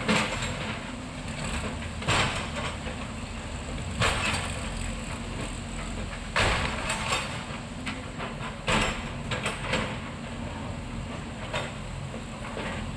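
Excavator engine running steadily at a building demolition, with a short, loud, noisy crash or rush about every two seconds.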